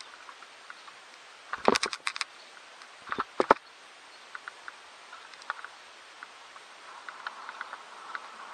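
Mountain bike knocking and rattling while riding, with two clusters of sharp knocks about two and three and a half seconds in and light scattered ticks between.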